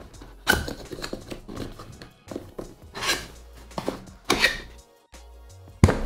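Cardboard sleeve sliding off a keyboard box and the lid being opened: scraping swishes of cardboard, three of them louder than the rest, with small taps and rustles and a sharp knock near the end. Background music plays underneath.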